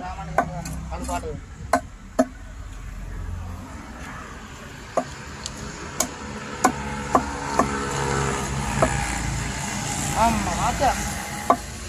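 A large knife chopping fish on a wooden cutting block: about ten sharp strikes at uneven intervals. A vehicle engine is running in the background.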